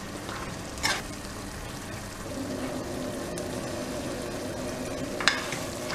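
Mutton pieces in thick masala frying steadily in a metal pot on the stove, with two short clicks of a ladle against the pot, about a second in and near the end.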